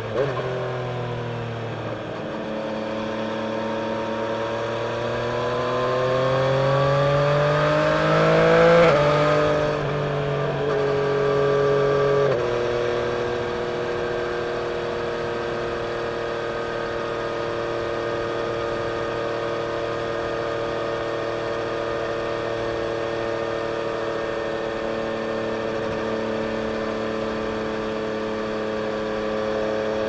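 Yamaha Tracer 900's three-cylinder engine through a Scorpion exhaust, heard from the rider's seat: it pulls up steadily in one gear for several seconds, then drops sharply in pitch with a quickshifter upshift about nine seconds in. About twelve seconds in it eases off to a quieter, steady cruise that holds to the end.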